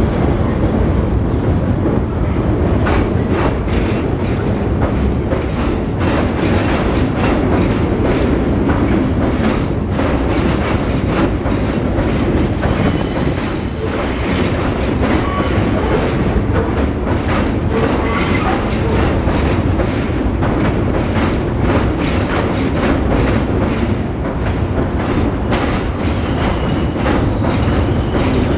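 R62A subway train running over an elevated steel structure: a steady heavy rumble with wheels clacking over rail joints and the crossover switches, and a brief wheel squeal about halfway through.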